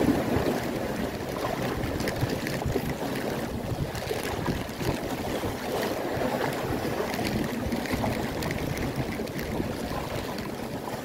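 Steady wind rushing over the microphone, mixed with choppy seawater lapping and splashing.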